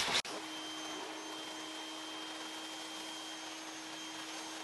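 Water spraying under pressure from an IK Foam Pro 12 sprayer gun into a wheel well. It starts with a sudden burst, then settles into a steady hiss with a steady hum beneath it.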